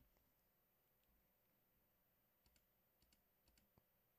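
Near silence: faint room tone with a few tiny clicks, clustered in the second half.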